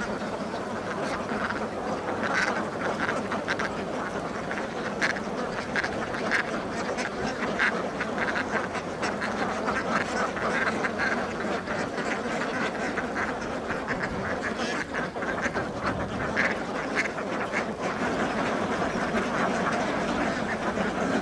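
A large flock of hundreds of domestic ducks on a pond, quacking continuously, with many calls overlapping.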